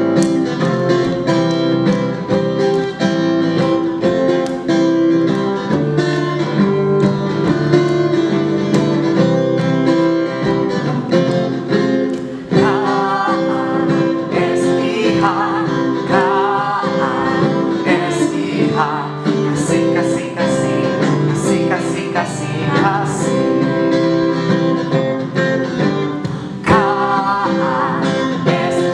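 Upbeat praise song with guitar backing and singing, at a steady beat.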